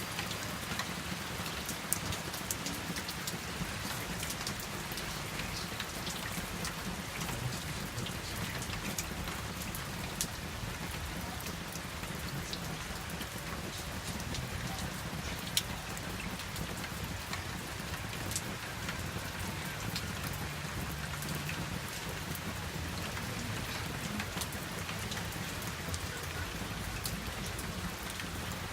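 Steady rain falling, a constant hiss with scattered sharp drips and taps of drops striking a surface, over a low rumble.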